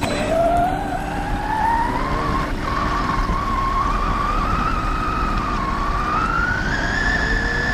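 Electric motor of a Vkar Racing Bison RC buggy whining. Its pitch climbs steadily over the first few seconds, then rises and falls with the throttle, over a low steady rumble.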